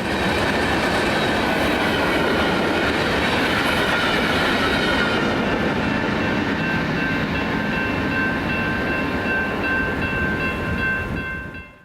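Loaded Union Pacific aggregate freight train passing at about 60 mph, with a loud steady rush of wheels on rail. It swells in at the start and cuts off just before the end. High steady ringing tones sit over the rush, clearest from about halfway through.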